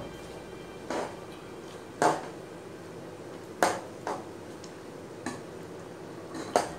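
Metal ladle clinking and knocking against the side of a cooking pot while a thick sauce is stirred, about seven irregular strikes, the loudest about two seconds in and again past three and a half seconds.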